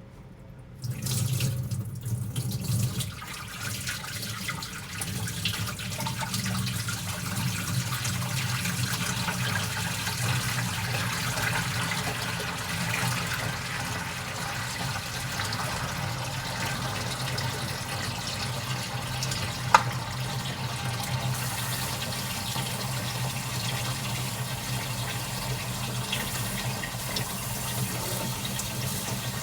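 Water running steadily from a tap, starting suddenly about a second in, with a low steady hum underneath. A single sharp click comes about two-thirds of the way through.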